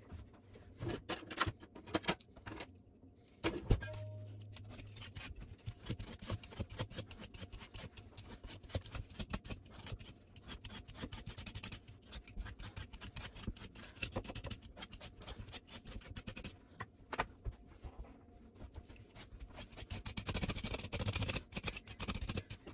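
Vegetable peeler scraping rapidly along the skin of a butternut squash, a steady run of short dry strokes with a few knocks, the strokes busiest near the end.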